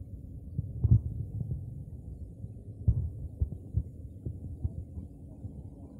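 Wind buffeting the phone's microphone: a low rumble with irregular soft thumps.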